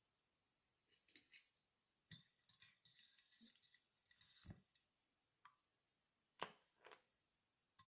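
Faint clicks and scrapes of small tools and earphone parts being handled, with a busier stretch of scraping in the middle and a few sharp, separate clicks near the end.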